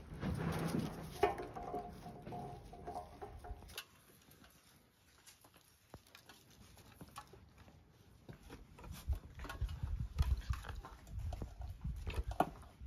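Golden retriever puppies playing in and around a small toy wagon. Puppy vocal sounds fill the first few seconds and stop abruptly. Scattered low thumps and sharp clicks from paws and the wagon follow near the end.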